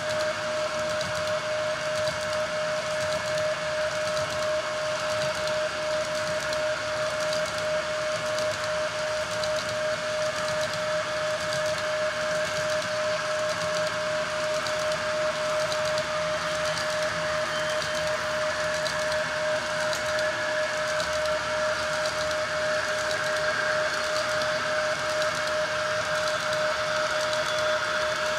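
HO-scale model train rolling along the track: fast, regular clicking of wheels over the rails with a steady high whine from the running train.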